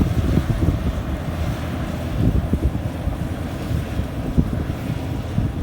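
Low, uneven rumble of a rice combine harvester at work, with wind buffeting the microphone.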